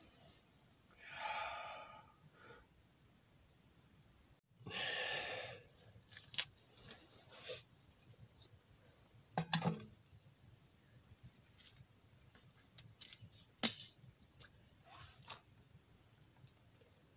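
Two long breathy sighs, then scattered sharp clicks with a heavier knock about nine and a half seconds in, as a steel mug is set down on the top of a wood-burning stove.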